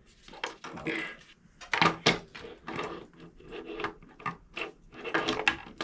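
Hard plastic figure parts clicking and knocking as they are handled and pressed together during assembly: a run of short, sharp clicks at uneven intervals.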